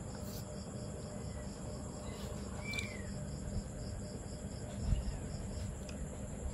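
Insects chirping in the background: a steady high-pitched trill with an even pulse of about three to four chirps a second, over a low hum.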